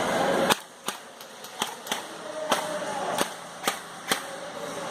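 Airsoft guns firing: about ten sharp cracks at uneven intervals, some single and some close together.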